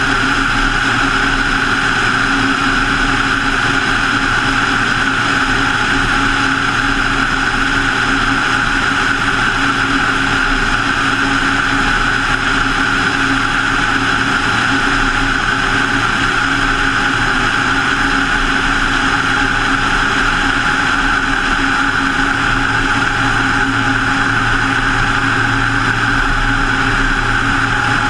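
Single-engine light aircraft's piston engine and propeller running at a steady, unchanging pitch, with a constant rush of air over the camera mounted outside the fuselage.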